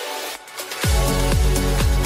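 Background electronic music with no bass at first, a brief drop-out, then the full beat coming in with a heavy bass kick just under a second in.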